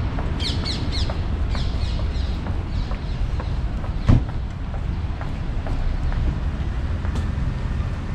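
Street ambience: a steady low rumble of passing traffic. A bird gives a quick run of falling chirps near the start, and a single sharp thump comes about four seconds in.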